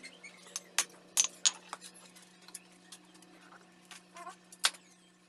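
Scattered sharp metallic clicks and clinks of a steel blade and blacksmith's tongs being handled at the anvil and forge, several in the first two seconds and one more near the end. A faint steady hum from the forge's electric blower runs underneath.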